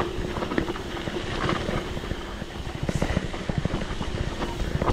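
Mountain bike rolling down a rough, slippery trail: tyres running over dirt, roots and rocks, with the bike rattling in a steady jumble of small knocks over a low rumble.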